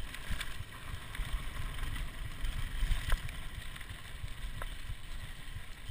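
Mountain bike riding down a dirt trail: wind rumbling on the camera's microphone over tyre noise on the dirt, with a sharp rattle from the bike about three seconds in and another a second and a half later.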